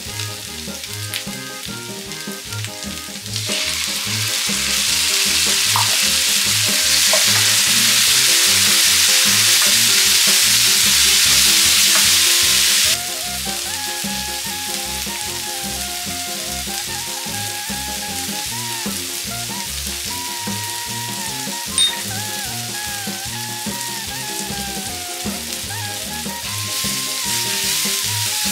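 Onions, green chillies and tomatoes sizzling as they fry in hot oil in a nonstick pan. The sizzle grows much louder about three seconds in as the chopped tomatoes go in, drops abruptly about halfway, and is joined by a wooden spatula stirring near the end. Background music with a steady beat plays underneath.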